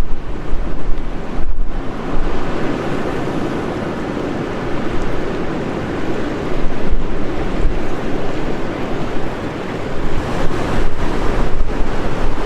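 Heavy storm surf breaking, with gale-force wind gusting against the microphone in a low, buffeting rumble. The wind gusts are strongest near the start and again near the end.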